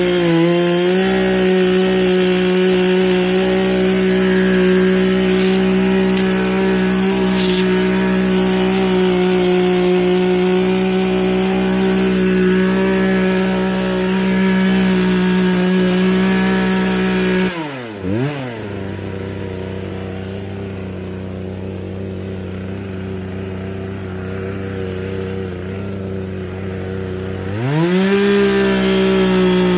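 Poulan Pro chainsaw's two-stroke engine running steadily at high revs. A little past halfway it drops back to idle, then it revs up again near the end.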